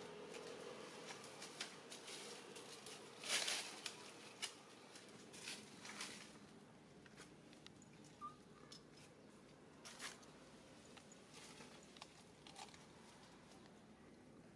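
Faint rustling and crackling of dry leaves and twigs stirred by monkeys on stone steps, with scattered light clicks and one louder rustle about three seconds in.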